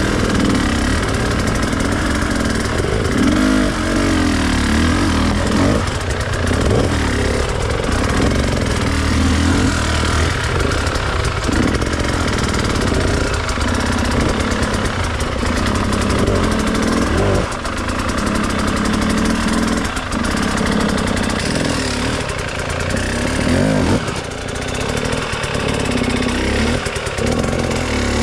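Enduro dirt bike engine running under a rider, the throttle opening and closing every second or so so the pitch rises and falls.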